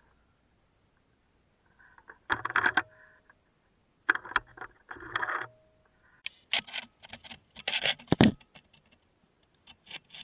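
Rustling and handling noise close to the microphone, in short bursts starting about two seconds in, then a quick run of clicks and taps with one heavy dull thump about eight seconds in. No engine is running.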